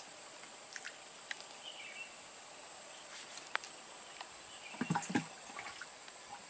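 Steady high-pitched drone of insects. A few faint clicks, and a short louder sound about five seconds in.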